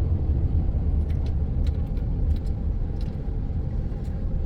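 Steady low rumble of road and engine noise inside a moving car, with a few faint clicks.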